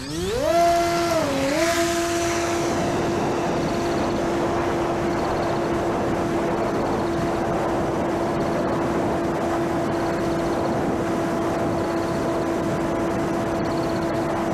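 Electric RC airplane's motor and propeller spooling up fast to a high whine, dipping briefly about a second in, then holding a steady pitch, as the homemade plane makes a ground-roll takeoff.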